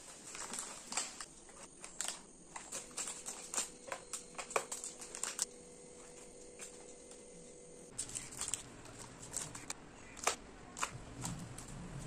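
Plastic snack wrappers crinkling and packets tapping against a plastic lunch box as they are set in one at a time: a quick run of small clicks and rustles, with a lull about halfway through.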